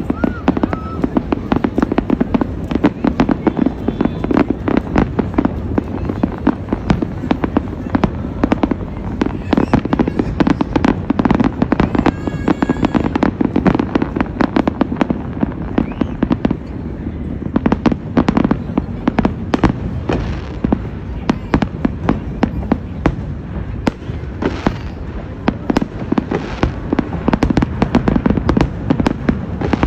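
Fireworks display: a dense, unbroken barrage of shell bursts and crackle, bangs following one another several times a second.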